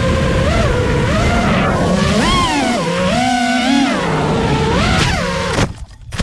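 FPV racing quadcopter's Flywoo NiN brushless motors whining, the pitch sweeping up and down with the throttle. About five and a half seconds in the motors cut out suddenly in a crash, followed by a few sharp knocks as the drone hits the ground.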